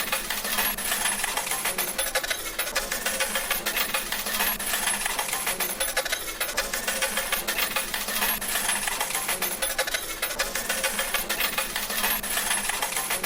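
Slot machine paying out: a continuous rapid clatter of coins dropping, many small metallic clinks a second, steady throughout.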